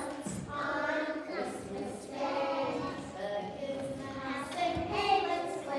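A group of preschool children singing together, in phrases with short breaks between them.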